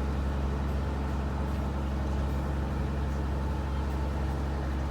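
An engine running steadily: a constant low drone that neither rises nor falls.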